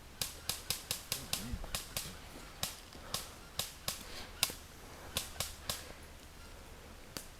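Airsoft replicas firing single shots: a string of about twenty sharp clicks, irregular, around three a second for six seconds, with one more near the end.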